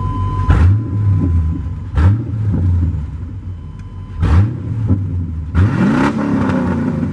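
Pickup truck engine accelerating, heard from inside the cab. The revs climb four times in succession, as when shifting up through the gears.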